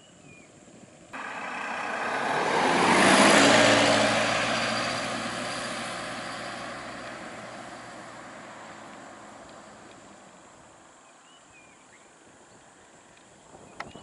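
A van drives past close by. Its engine and tyre noise start abruptly about a second in, swell to a peak within a couple of seconds, then fade slowly as it moves away.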